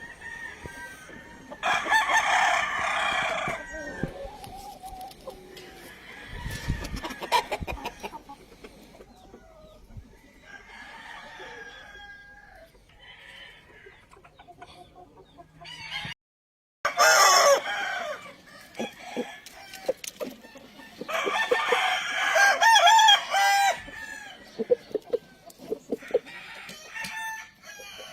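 Gamefowl roosters crowing several times, with hens and birds clucking between the crows. The loudest crows come about two seconds in and again in the second half, after a brief dropout.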